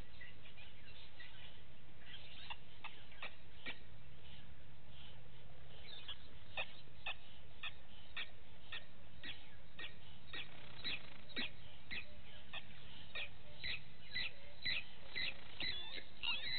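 Short, high chirping calls repeating irregularly, about two a second and getting busier, with a burst of warbling calls near the end, over a faint steady low hum.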